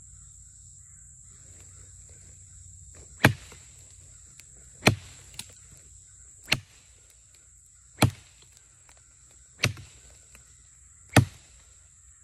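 Machete chopping into a dead tree trunk: six sharp blows about a second and a half apart, the first a few seconds in.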